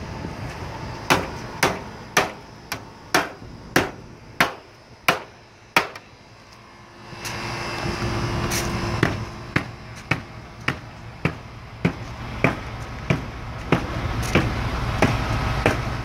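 Repeated hammer blows on the sheet-metal curb of a rooftop HVAC unit, about two sharp strikes a second. About seven seconds in, a steady low rumble joins under the strikes.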